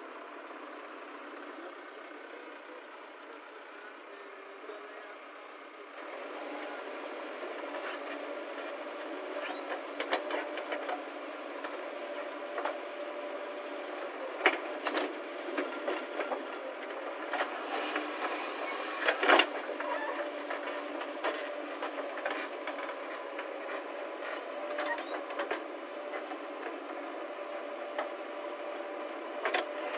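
A small motor running with a steady hum that starts a few seconds in, with scattered clicks and knocks throughout.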